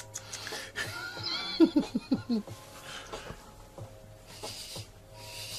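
A person's short burst of laughter, with bedding rustling and scuffling as a tabby cat swats and lunges at a striped cat hand puppet.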